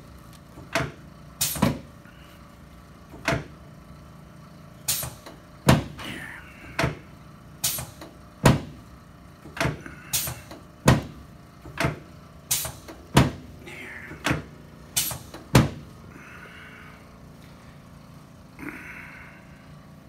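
A run of about twenty sharp knocks at uneven intervals over some fifteen seconds, as chiropractic thrusts are given to the sacrum and sacroiliac joints of a patient lying face down on a treatment table. Two soft hisses follow near the end.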